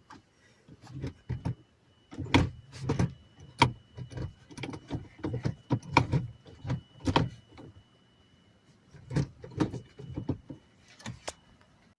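Irregular mechanical clicks and clunks, a few a second in clusters with short pauses, from an NRG quick-release steering-wheel hub being worked by hand.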